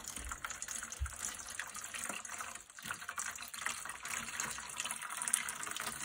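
Boiling water poured in a thin steady stream from a glass measuring cup over an apple, splashing and trickling into a shallow metal pan.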